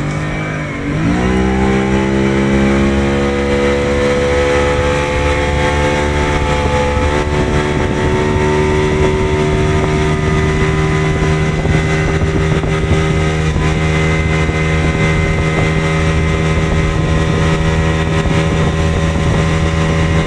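Jet ski engine accelerating hard about a second in, then running steadily at high speed while towing a loaded banana boat.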